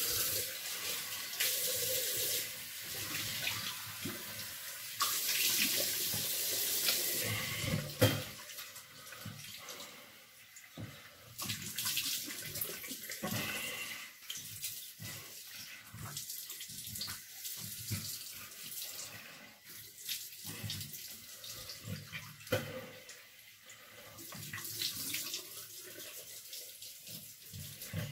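Tap water running into a bathroom sink with irregular splashing as someone rinses their face by hand. It is louder for the first eight seconds or so, then quieter and more broken up.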